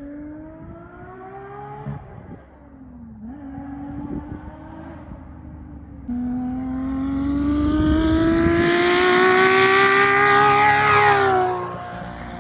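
1989 Nissan Laurel C33's engine accelerating hard through the gears, its pitch climbing, dropping at a shift about two seconds in, then climbing again in one long, loud pull with a rushing noise over it, falling off near the end.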